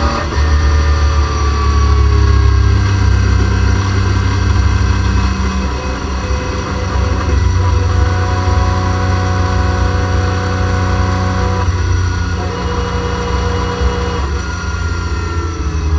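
BMW M3 race car's engine heard from inside the cockpit, running at steady part throttle in the mid revs, its note stepping down a few times as the car slows.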